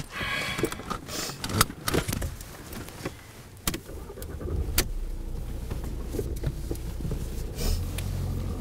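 Sharp clicks, knocks and rustling inside a car as the front-seat occupants settle in and buckle up. About five seconds in, the car's engine starts and runs with a low, steady rumble that grows louder near the end.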